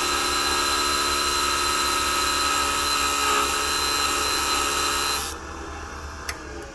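Electric piston-ring end-gap grinder running steadily, its abrasive wheel grinding a thousandth or so off the end of a piston ring. About five seconds in the grinding stops, the toggle switch clicks off and the motor winds down with a falling whine.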